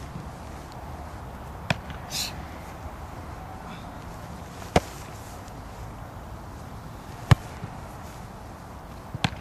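A football being kicked and caught: four sharp thuds of the ball being struck, a few seconds apart, the last one doubled.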